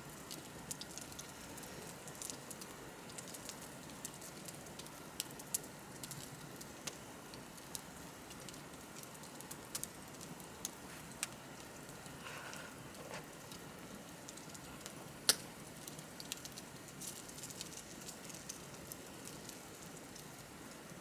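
Wood bonfire crackling: irregular sharp pops and snaps over a steady soft hiss of the flames, with one louder pop about fifteen seconds in.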